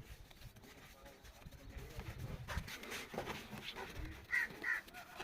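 Two short, harsh bird calls, a little over four seconds in, over low background noise.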